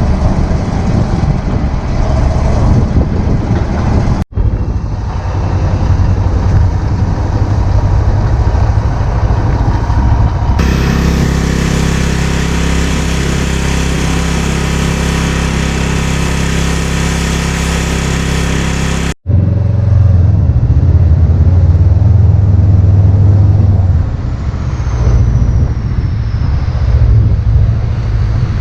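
Vehicle engine running steadily through several spliced stretches, with a louder, noisier stretch in the middle.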